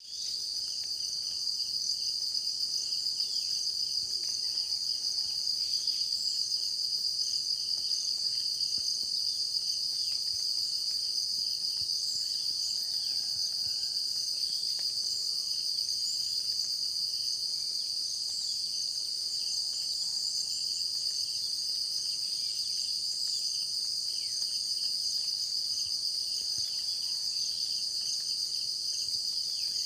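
A grasshopper-family insect (a tidda) singing: a continuous, shrill, high-pitched trill with no pauses and a steady level.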